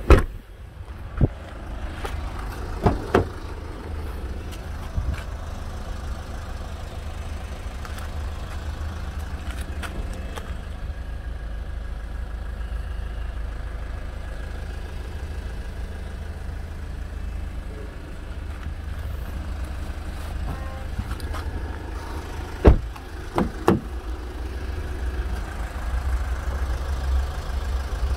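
Kia Sorento's tailgate shut with a clunk just at the start, followed by a few clicks and knocks from the car's doors and latches being worked, loudest in a cluster of three about 23 seconds in. A steady low hum lies under it all.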